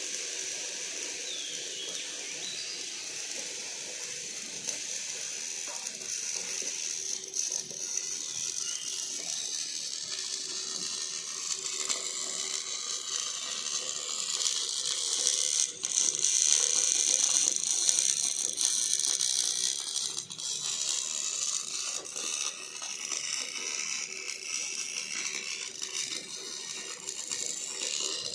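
Robotic arc welding: a welding robot's arc crackling and sizzling continuously, with a short break about halfway through and a louder stretch after it.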